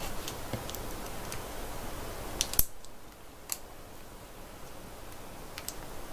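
Small plastic clicks and snaps as the parts and joints of a plastic action figure are handled and pressed together, scattered irregularly, with one sharper snap about two and a half seconds in.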